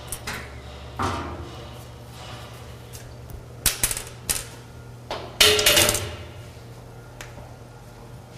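Metal clanks and rattles from the stainless-steel cover and body of a Stokes Model 21 single-arm mixer as the cover is opened and handled, loudest about two-thirds of the way through, over a steady low hum.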